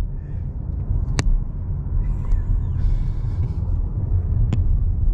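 Steady low road rumble of a moving car heard from inside the cabin, with two sharp clicks, one about a second in and one near the end.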